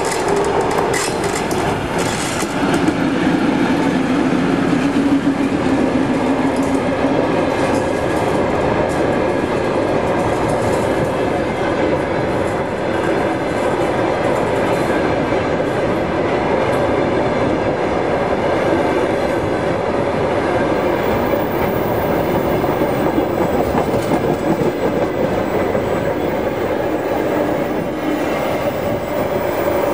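ChME3 diesel shunting locomotive passing close by, followed by a long train of empty flat wagons rolling past with a steady rumble and wheels clattering over rail joints.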